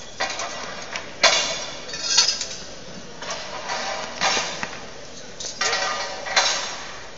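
Steel bridge members clanking and clinking as they are fitted and bolted together: a string of sharp metallic knocks, a second or so apart, some with a brief ring.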